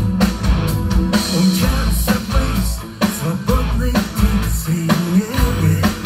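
Live rock band playing loud: electric guitars, bass guitar and drums, amplified through the stage PA, heard from the audience tables.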